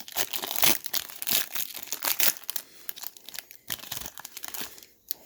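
A hockey trading-card pack's wrapper being torn open and crinkled by hand, a dense run of irregular crackling that dies down near the end.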